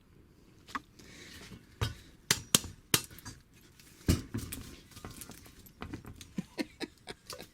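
Metal engine parts clinking and knocking in a series of sharp irregular taps and a couple of duller thuds as a Vespa BFA 306cc cylinder is handled against its engine case and tried for fit; the cylinder does not fit the case.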